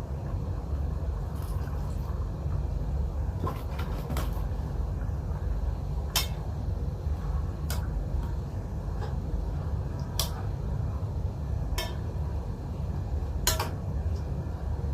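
Cooking utensil knocking and clinking against a pot or pan: a quick cluster of knocks, then single sharp knocks every second or two, over a steady low rumble.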